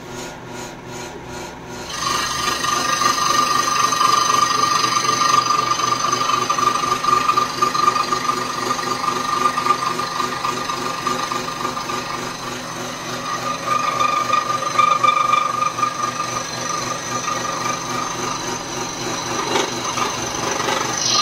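INGCO SS852 85 W electric scroll saw running with its blade cutting a wooden board fed by hand: a steady rasping with a high tone in it, louder from about two seconds in.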